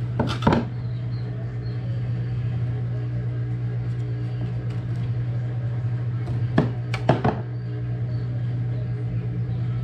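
A steady low mechanical hum, with a few short knocks about half a second in and again around seven seconds in.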